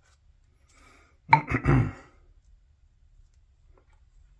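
A man clearing his throat once, a short rough burst about a second in.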